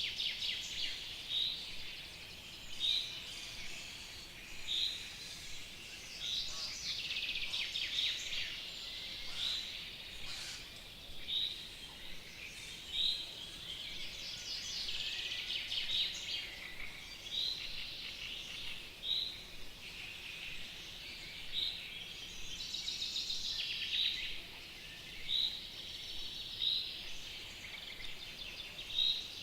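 Several songbirds singing together: one bird repeats a short, high note every second or two, over busier twittering and trills from other birds, with a faint steady outdoor hiss underneath.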